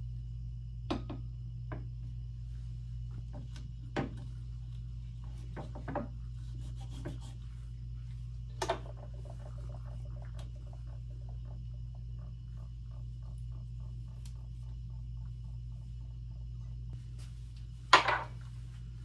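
Glass knocking and rubbing on glass as a glass aspirator bottle is handled and stood in a glass dish, a few separate knocks over a steady low hum. The loudest is a small glass beaker set down on a tiled counter near the end.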